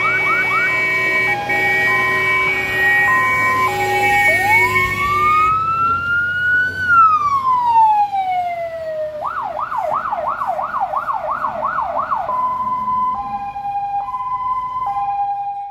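Fire engine electronic siren on an emergency run, switching between patterns: a fast yelp, an alternating high-low two-tone, one long wail that rises and falls, another fast yelp, then the two-tone again. Under it runs the fire trucks' engine noise, loudest as a truck passes close about seven to eight seconds in.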